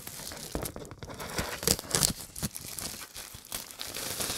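Clear plastic packaging rustling and crinkling as a pack of metallic paper is pulled out of its opened wrapper, with a few sharper, louder crackles about two seconds in.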